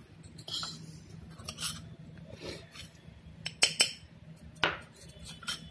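A steel spoon clinking and scraping against a metal kadai and a ceramic bowl as roasted fenugreek seeds are scooped out: a scattering of separate sharp clinks at uneven gaps, the loudest a few seconds in.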